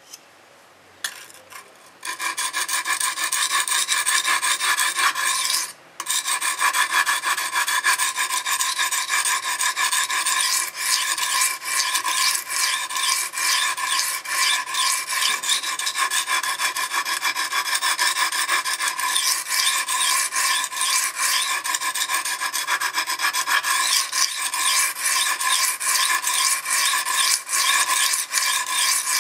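A 420J2 stainless kitchen knife being ground on the coarse side of an aluminium oxide sharpening stone: quick back-and-forth rasping strokes begin about two seconds in and carry on with one short break just before six seconds. The strokes are working a less-ground section of the edge to raise a burr along it.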